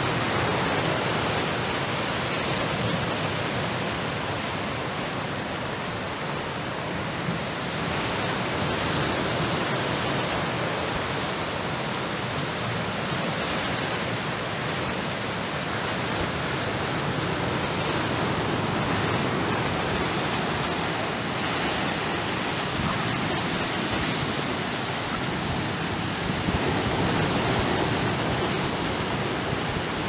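Ocean surf: waves breaking and washing in a continuous rush that swells and eases every few seconds.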